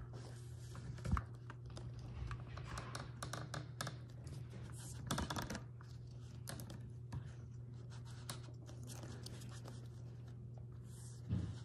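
Carving knife slicing into a small wooden block with irregular short clicks and scrapes as the blade incises and V-cuts lines and little chips pop out. There are a couple of sharper knocks, one about a second in and one near the end.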